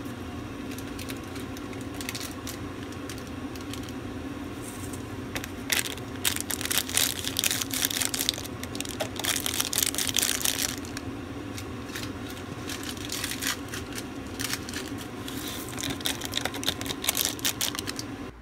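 Plastic instant-noodle seasoning sachets crinkling and being torn as powder and dried vegetable flakes are shaken into a paper cup, over a steady low hum. The crinkling comes in bursts from about six to eleven seconds in and again near the end.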